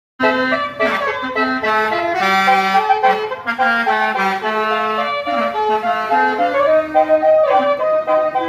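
A bus's basuri musical horn playing a quick tune of short held notes, several pitches sounding together.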